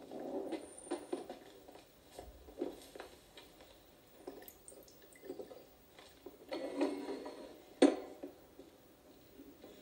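Coffee poured from a glass carafe into cups, with light clinks of crockery and a sharp clack a little before the end, heard through a TV's speaker.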